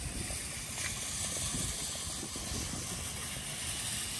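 Wind rumbling unevenly on a handheld microphone over a steady hiss of outdoor background noise.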